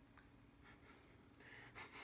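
Near silence: room tone with a faint steady hum, and a few faint, soft, scratchy noises in the second half, the strongest just before the end.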